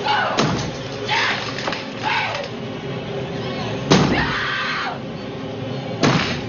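An axe striking hard into a wooden door, three heavy blows a few seconds apart, with a woman screaming in high, wavering cries between the blows.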